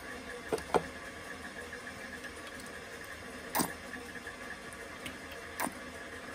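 A few light knocks and clinks of kitchenware, four in all, the second the loudest, over a steady low hum, as grapeseed oil is added to milk in a stainless steel bowl.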